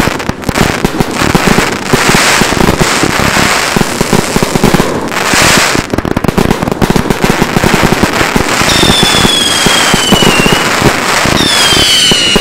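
Swords 136-shot XL aerial finale set, its four aerial cakes firing together: a dense, unbroken barrage of loud bangs and crackling breaks. Twice in the second half a whistle sounds and falls in pitch.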